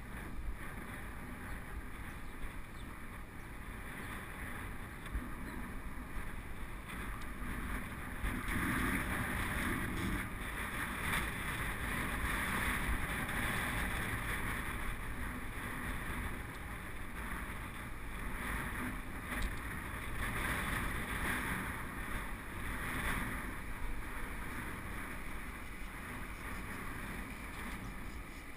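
Wind rushing over a GoPro's microphone, with the rumble of mountain-bike tyres rolling on tarmac; it grows louder from about eight seconds in as the bike gathers speed.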